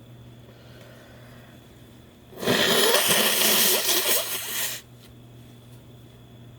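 A person's long, forceful rush of breath through the nose, the reaction to snuffed chhinkni sneezing powder. It starts about two seconds in, lasts about two and a half seconds and stops abruptly, over a steady low hum.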